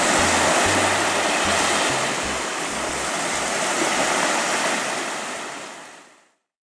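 Sea surf, waves breaking and washing up on a beach, fading out about six seconds in.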